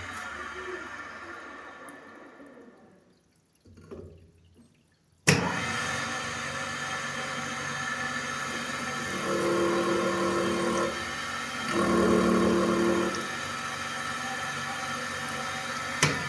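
Bench grinder (sharpening machine) winding down to a stop after being switched off, then switched back on with a sudden start and running steadily. While it runs, two stretches of about a second and a half each bring a louder, ringing tone over the motor.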